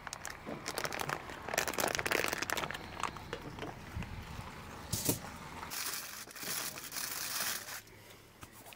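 Plastic bag crinkling as a rack of pork ribs is pulled out of it, then aluminium foil crinkling as it is folded around the ribs, with a knock about five seconds in.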